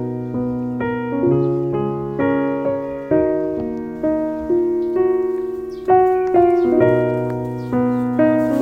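Background piano music, gentle chords struck about every half second, each note fading slowly.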